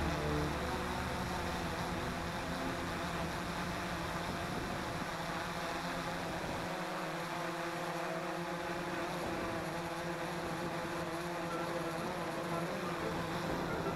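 XK X380 quadcopter's motors and propellers running steadily in flight, heard from the drone's own camera.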